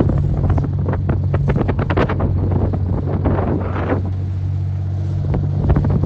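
A boat's engine runs steadily with wind buffeting the microphone, over a string of irregular knocks and clatter.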